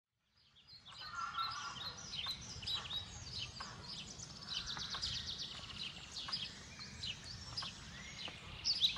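Several songbirds singing at once in woodland: overlapping chirps, short whistles and quick trills, over a faint low background rumble. The sound fades in about half a second in.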